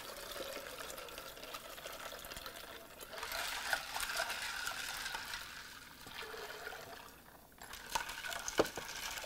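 Water poured into a glass pitcher of lemonade with ice, then stirred with a long metal bar spoon, the liquid swishing, louder in the middle. A few light clicks near the end.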